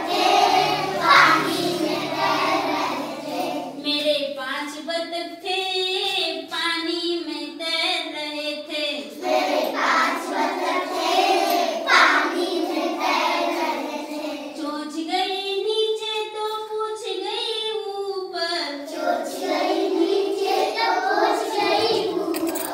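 A group of young schoolchildren singing a song together.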